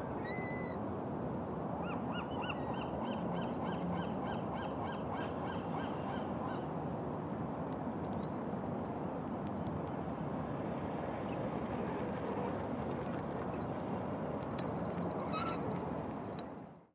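Pigeon guillemots calling: series of thin, high whistled notes, a few a second, building near the end into a fast, high trill that slides slightly down, over a steady low background rush.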